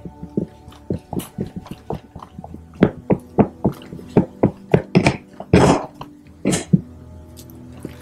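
Irregular clicks and knocks of a roller skate wheel and axle nut being worked with a tool, re-fitting a wheel that felt too tight on its axle. A few longer, louder scraping sounds come a little past the middle.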